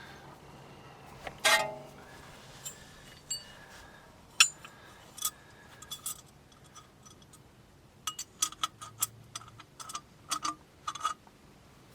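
Metal hand tools and steering parts clicking and clinking as they are handled during tie rod work. There is one louder knock with a short ring early on, a few single clicks, and then a quick irregular run of clicks later.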